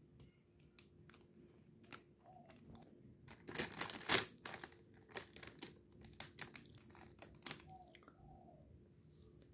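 Clear plastic bread bag crinkling and rustling as bread slices are handled on it. There are scattered crackles, with a dense, louder burst a little after three seconds in that eases off after about seven seconds.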